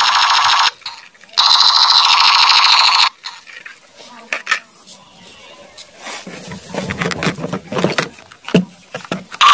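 Battery-powered plastic toy machine gun firing its electronic sound effect in two loud bursts, a short one and then one of about two seconds, each cutting off sharply. Then quieter clicks and the rattle and knock of plastic toy guns being handled against each other.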